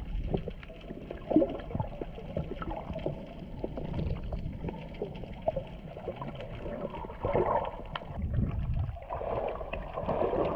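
Seawater heard through an action camera held under the surface: uneven sloshing and gurgling with scattered small clicks, growing louder near the end.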